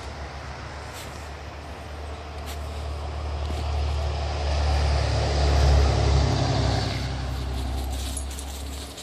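A road vehicle's engine and tyre rumble, swelling to a peak about six seconds in, then fading and dropping away sharply near the end, as when a vehicle passes by.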